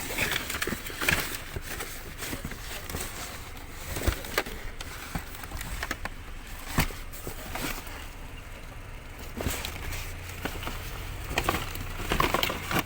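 Rummaging by hand through a pile of discarded junk: irregular knocks, clicks and rustles of objects being moved and shifted.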